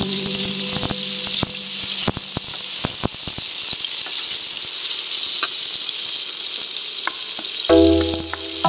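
Sliced onions sizzling in hot oil in a metal wok, with a slotted metal spatula clicking and scraping against the pan as they are stirred. Background music comes in near the end.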